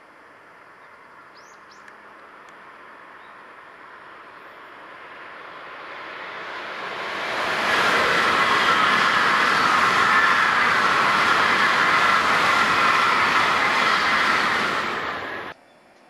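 Shinkansen bullet train passing at high speed: a rushing hiss of wheels and air that swells for about seven seconds as it approaches, stays loud for about seven seconds as the long train goes by, then cuts off abruptly.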